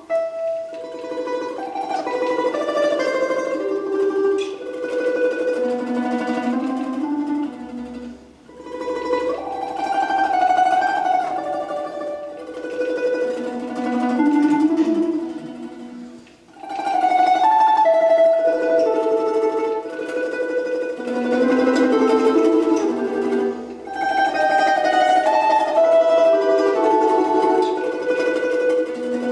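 Solo domra played with a pick: a lively melody of quick plucked notes in phrases, with short breaks about eight and sixteen seconds in.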